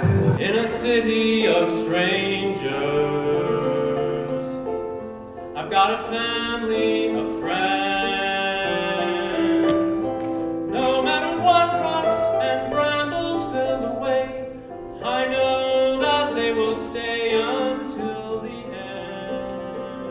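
Music: a voice singing long held notes in a classical, operatic style over piano accompaniment, in phrases with short breaks.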